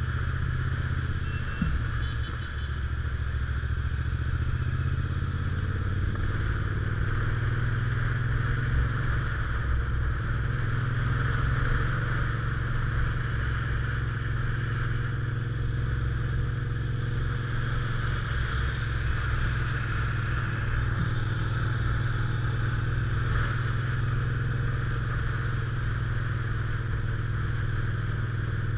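Motorcycle engine running steadily at cruising speed, heard from the rider's seat, with a constant rush of wind and road noise over it.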